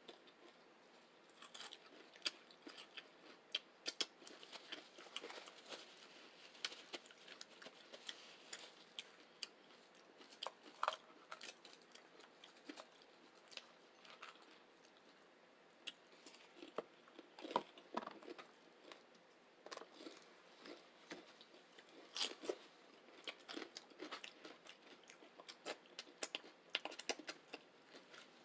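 Close-miked chewing and crunching of chips loaded with vegetarian chili and beans: irregular crisp crunches, several a second, between softer chewing.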